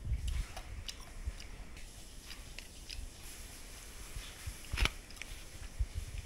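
Handling noise from a handheld phone: scattered small clicks and soft low knocks, with one sharper click almost five seconds in.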